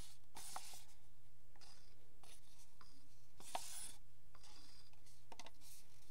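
A stick scraping paint out of a plastic cup: a string of short scratchy strokes, about one a second, with a sharper click about three and a half seconds in.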